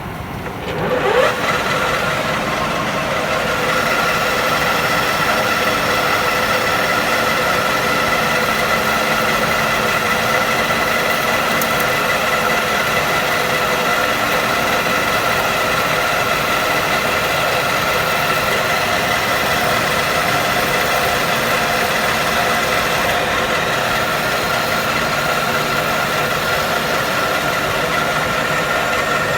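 A 16K20 screw-cutting lathe spinning up about a second in, its drive rising in pitch, then running steadily with an even whine of several tones.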